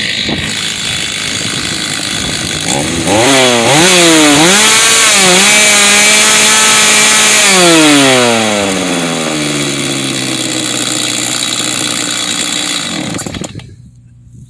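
Stihl MS390 two-stroke chainsaw idling, then revved in a few quick blips about three seconds in and held at high revs for a couple of seconds before dropping back to idle. It shuts off near the end.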